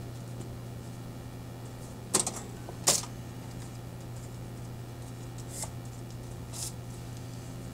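A few sharp clicks and clacks over a steady low hum. The two loudest come about two and three seconds in, and two fainter ones follow later.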